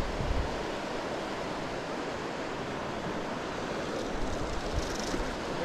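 Steady rushing of a river's flowing water, with some wind on the microphone.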